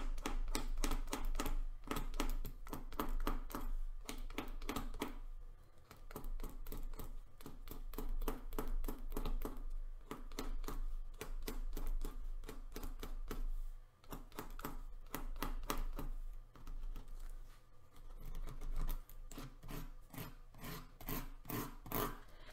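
Pen scratching on paper card in rapid short strokes, scribbling in shading, with a few brief pauses.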